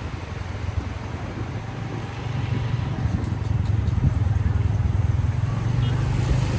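A motor vehicle running with a steady low engine hum and road rumble, getting a little louder about two seconds in.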